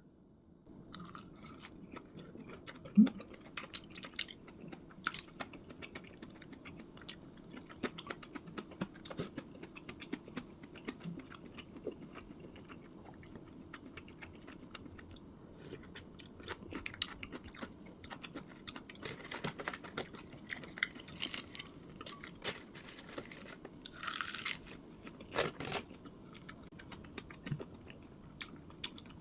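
A person eating at close range: chewing and biting with many small clicks and taps scattered throughout, and a brief louder rustle about 24 seconds in.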